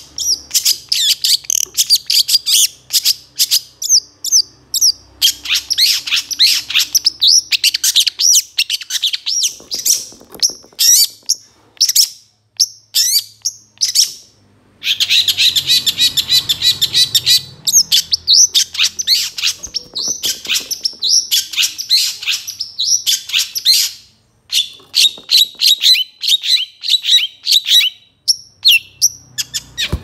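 Long-tailed shrike (cendet) singing a fast, busy song of quick chirps and trills, broken by a few short pauses.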